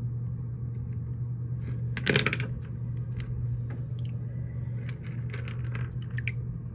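Wet stones clicking and knocking against one another and the dish as they are handled in water: one sharper knock about two seconds in, then a run of lighter clicks. A steady low hum runs underneath.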